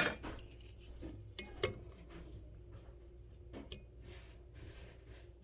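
Light metallic clinks and taps as a ductile iron bench vise and a tool are handled. The loudest clink comes right at the start, another tap about a second and a half in, and a couple of small clicks near the four-second mark, over a faint low hum.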